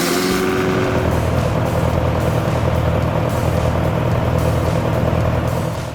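An engine or heavy machine running steadily with a low, even hum, its sound changing about half a second in.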